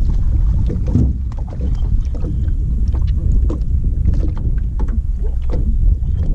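Small fishing boat on the water: a steady low rumble with frequent light knocks and clicks scattered throughout.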